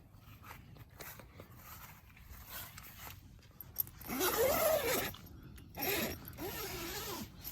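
A zipper pulled in three strokes, the first and longest about four seconds in, each with a rising-and-falling rasp.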